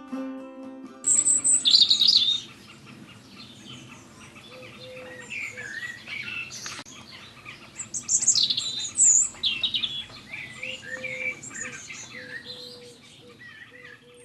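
Birds chirping and singing in quick, high warbling phrases, loudest just after a second in and again about eight seconds in. A guitar piece ends about a second in.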